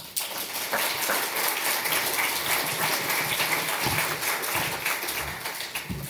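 Audience applauding: steady clapping that starts right away and dies down near the end.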